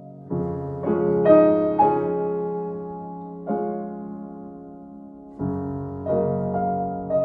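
Background piano music: slow chords and single notes struck every second or two, each ringing on and fading.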